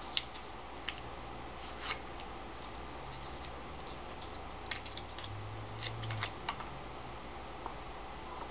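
Scattered light clicks and rustles of white foam packing and a clear plastic blister tray being handled as a small circuit-board receiver is pulled out of its foam and set down on cardboard.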